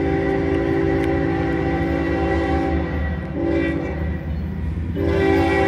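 Multi-note air horn of an approaching GE Evolution Series (GEVO) freight locomotive: one long blast ending about 3 s in, a short blast, then another long one starting near the end. This is the rhythm of a grade-crossing warning. The low rumble of the diesel engines runs underneath.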